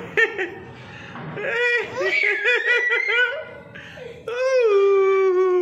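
A toddler laughing in short bouncing bursts, then a long held squeal at a steady pitch starting about four seconds in.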